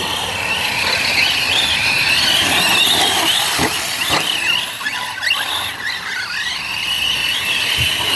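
Large-scale electric RC off-road cars (YIKONG TB7 type) driving hard on dirt: a high motor whine that rises and falls with the throttle, over the hiss of tyres on the track.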